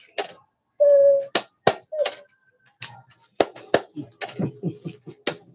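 Something being grated by hand on a perforated sheet-metal grater over a wooden board: a run of short, sharp rasping strokes, scattered at first and then coming about four a second in the second half.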